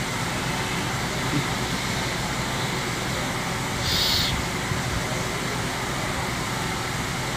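Steady background hum, with a brief rustle of plastic packaging about four seconds in as the pressure washer's spray gun is pulled out of its box.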